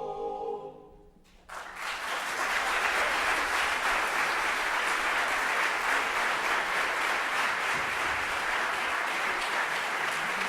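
A held sung chord fades out in the first second; after a short hush, a concert audience breaks into applause about a second and a half in and keeps clapping steadily.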